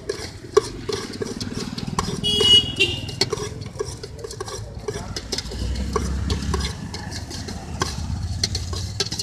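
Metal clinking and clattering rapidly in a steel mixing bowl as bhel puri is stirred and tossed, over the low rumble of passing road traffic. A brief high-pitched beep sounds about two seconds in.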